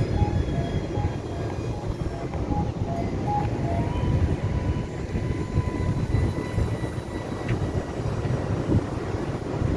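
Electric motor and propeller of an XK A290 foam RC F-16 flying high overhead: a thin steady whine that comes in about four seconds in, over a steady low rumbling noise.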